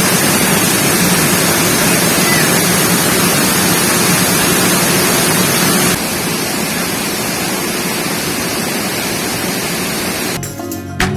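Steady rushing of falling water, a loud even hiss with no rhythm; it drops a little in level about six seconds in.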